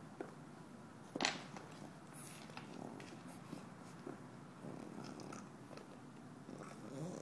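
Teething French bulldog puppy gnawing a rubber chew bone, with low, rough breathing throughout and scattered small clicks of teeth on the toy. One sharp click about a second in is the loudest sound.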